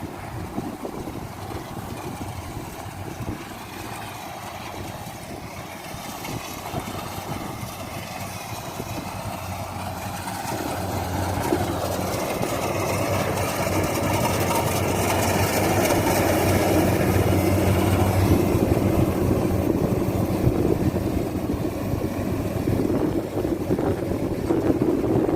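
Rice combine harvester engine running steadily, growing louder about halfway through.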